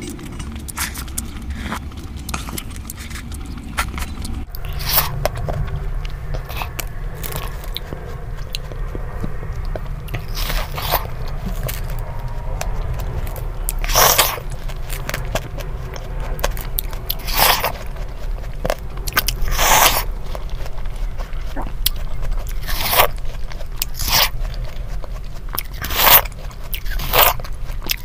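Close-up bites and chewing into watermelon near the rind, with a crisp crunch every couple of seconds. Early on, fingers scrape crumbs off a metal plate.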